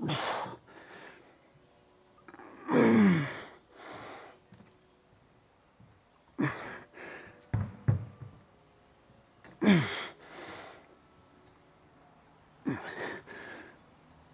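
A man breathing hard with effort: five forceful out-breaths with a voiced groan falling in pitch, one about every three seconds, each followed by a quicker, quieter breath, the rhythm of effortful exercise reps.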